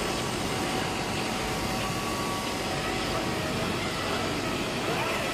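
Automatic CNC fabric cutting machine running as its cutting head travels across the table: a steady mechanical noise with faint motor whines that come and go.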